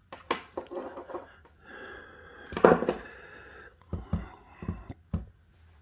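An electric hot plate and its power cord and plug being handled: scattered clicks and knocks, a stretch of scraping with a sharp click about two and a half seconds in, then a few dull thumps near the end.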